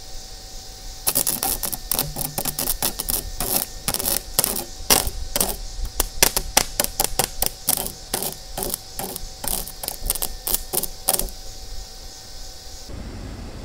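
Improvised arc welder powered by car batteries: the electrode is struck against a steel bracket, and the arc crackles and pops in rapid, irregular bursts. It starts about a second in and stops near 11 seconds.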